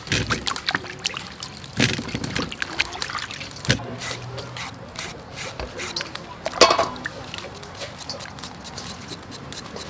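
Hands splashing and rubbing vegetables in a metal bowl of water, with a louder knock about two-thirds of the way through; near the end, quick repeated scraping strokes of a julienne peeler shredding cucumber into a steel bowl.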